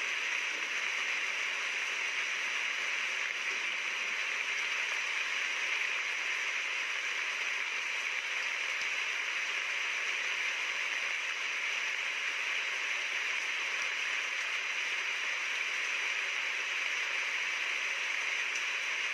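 Steady rain, an even hiss with no distinct drops standing out.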